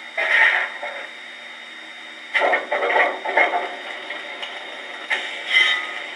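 QSI Titan sound decoder in a Bachmann C-19 large-scale model steam locomotive playing steam-engine sound effects through its onboard speaker while the engine stands still: four separate bursts of about half a second to a second each, over a steady thin background sound with no bass.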